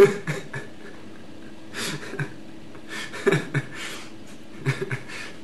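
A man's short bursts of heavy breathing and throat noises over a bowl, in clusters every second or so, while he feels sick from a stomach full of Oreos.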